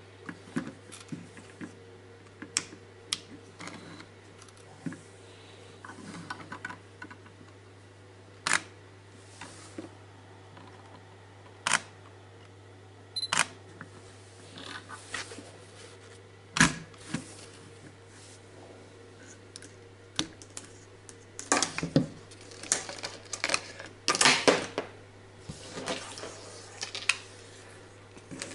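Sharp single clicks of a camera shutter fired inside an underwater housing, a few seconds apart, then a denser run of plastic clicks and knocks as the strobe and its fibre-optic cable are handled. A faint steady low hum runs underneath.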